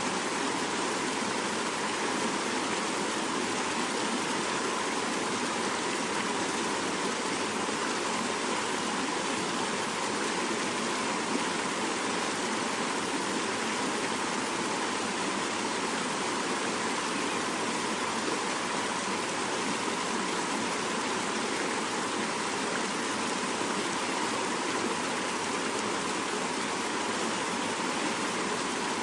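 Fast-flowing mountain river rushing steadily over rocks, an even unbroken water noise.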